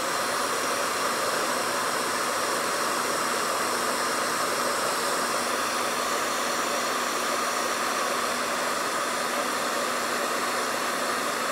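Handheld hair dryer running steadily, a constant rush of air with a faint motor hum, blown onto leather adhesive to dry it to tacky.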